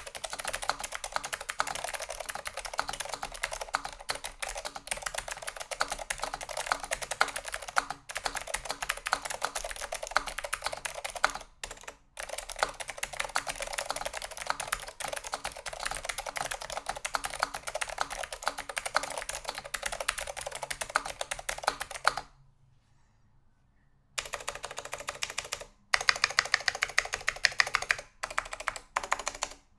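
Fast typing on a Leading Edge DC-2014 mechanical keyboard with SKCM Blue Alps clicky switches, in a polycarbonate case with a top-mounted steel plate and no dampening: dense, loud clicking. It stops for about two seconds over two-thirds of the way in, then resumes in shorter bursts.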